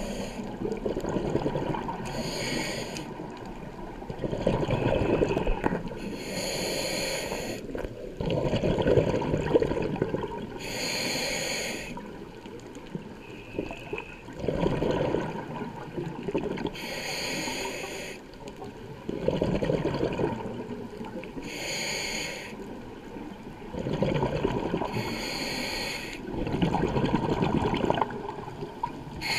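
Scuba diver breathing through a regulator underwater: a short hissing inhale, then a rumbling burst of exhaled bubbles, about six breaths at an even pace of one every four to five seconds.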